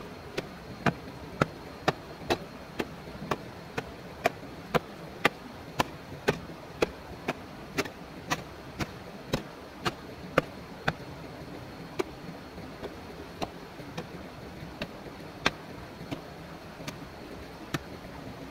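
Repeated sharp chopping strikes, about two a second, becoming sparser and mostly softer after about ten seconds, over a steady background hiss.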